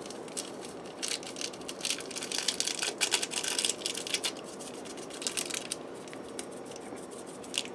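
Foil ramen seasoning packets being squeezed and shaken out over a pot, their wrappers crinkling and rustling in a quick irregular run of crackles, busiest in the first half.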